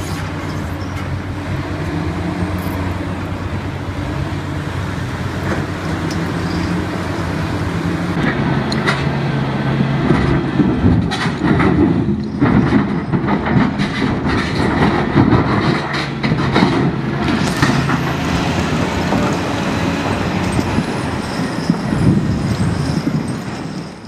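Heavy wheel loader's diesel engine running steadily. About eight seconds in it works harder, with repeated knocks and scraping as its bucket shoves a large boulder across the rocky ground.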